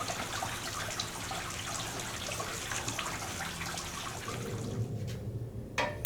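Water running steadily from a tap while the bandsaw's cover is washed, easing off about four and a half seconds in; a single knock near the end.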